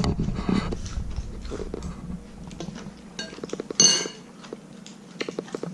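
A person eating: chewing, with small clicks of a spoon and chopsticks against dishes. One louder, brief ringing clink comes about four seconds in.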